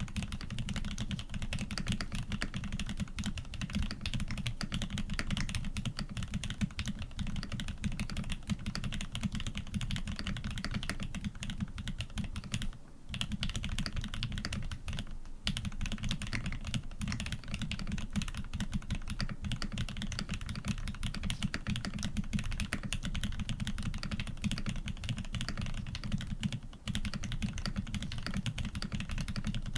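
Fast continuous typing on a custom mechanical keyboard with lubed Aquaking linear switches on a polycarbonate plate and PBT keycaps: dense, deep, muted key strokes with brief pauses about 13 and 27 seconds in.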